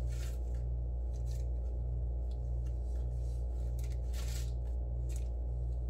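Rustling of a small fabric bag and its paper wrapping as fingers dig through it, in several short bursts, over a steady low hum.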